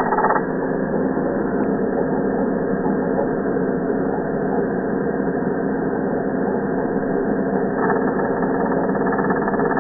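Angle grinder motor and cutting disc, heard slowed down to a deep, steady mechanical drone. The higher part of the sound drops away just after the start and comes back near the end.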